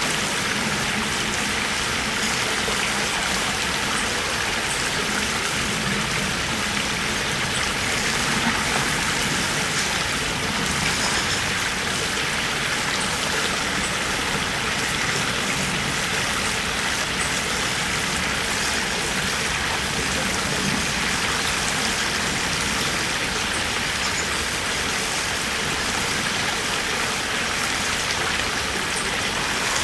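Shallow river water running steadily over gravel and a concrete edge, an even rushing sound with a few faint droplet ticks.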